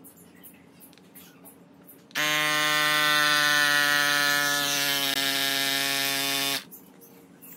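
RockBros A8 cordless mini electric air pump running, a loud steady buzzing hum with a hiss, as it inflates a scooter tyre. It starts abruptly about two seconds in and cuts off sharply about four and a half seconds later.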